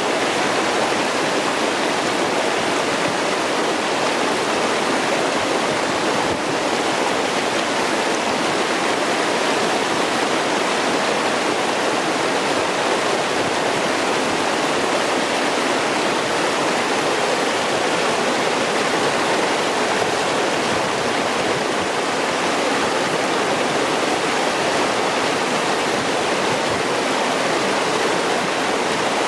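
Clear mountain stream rushing and babbling over rocks: a steady, unbroken rush of water.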